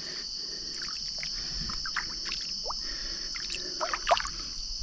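Night insect chorus, a steady high-pitched drone, with faint scattered chirps and clicks and a couple of slightly louder clicks about four seconds in.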